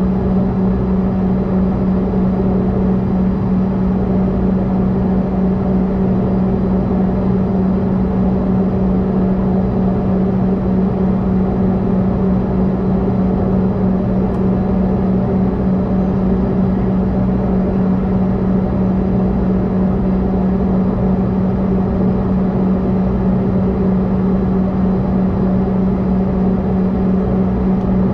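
Steady cabin drone of a CRJ-200 regional jet holding still on the ground with its rear-mounted turbofan engines idling: an even low rumble under a strong constant hum.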